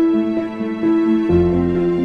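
Slow, gentle cinematic background music of sustained chords; the harmony changes, with a new low bass note, about a second and a half in.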